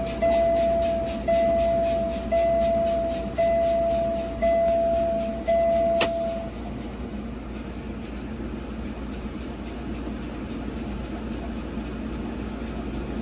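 Vehicle warning chime, most likely in the cab of a concrete mixer truck. A single ringing tone fades over each second and repeats about once a second, six times. It stops with a click about six seconds in, leaving a steady low hum.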